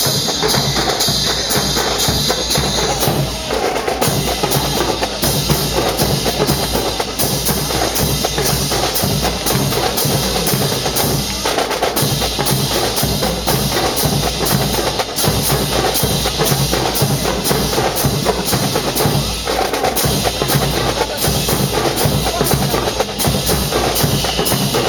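Marching drum corps playing a fast, steady cadence on snare and bass drums, with dense sharp strokes.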